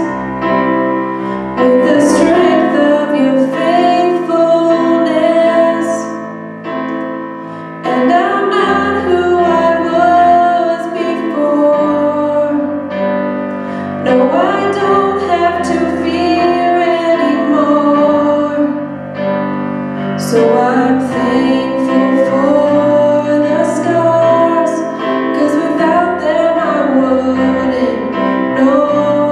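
A woman singing a slow worship song while accompanying herself on a Yamaha Clavinova digital piano.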